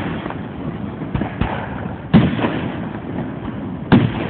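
Aerial fireworks bursting in sharp bangs. The two loudest come about two seconds in and near the end, with fainter pops between them.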